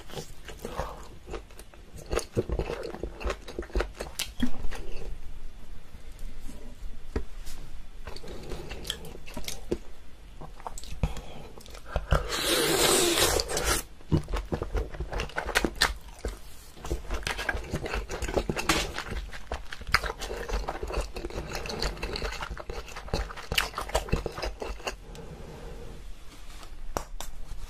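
A person chewing and biting food close to the microphone, with many short crunching clicks and a louder noisy stretch lasting about a second and a half near the middle.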